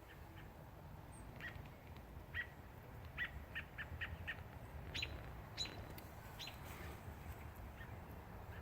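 American robin giving short, sharp call notes, about a dozen spaced irregularly: the calling of a parent bird near its grounded fledgling, which the family hears as the mother screaming. A steady low rumble lies underneath.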